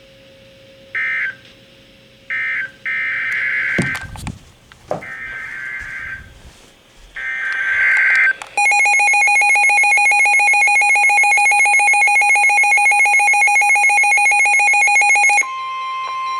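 Emergency Alert System signals from NOAA Weather Radio. A series of short, screechy, warbling bursts of SAME digital header data is followed by the loud, steady two-tone EAS attention signal. Near the end this switches to a single steady alert tone.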